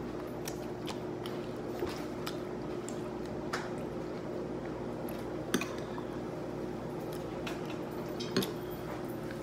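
Close-up wet chewing and lip-smacking of saucy shrimp being eaten with the fingers, with a few short sharp clicks, over a steady low background hum.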